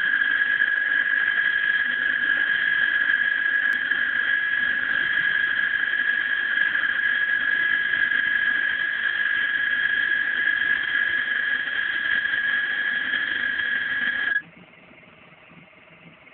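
Leica VT1000S vibratome running, its oscillating blade head giving a loud steady high-pitched whine that stops abruptly about 14 seconds in, leaving a faint low hum.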